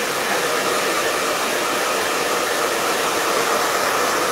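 Handheld hair dryer running steadily close by, an even rush of blown air with a faint steady hum in it.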